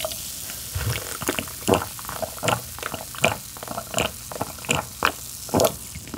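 A string of short, close-miked wet squelches and clicks, roughly one every half second to second, from wet king crab and drink being handled and eaten.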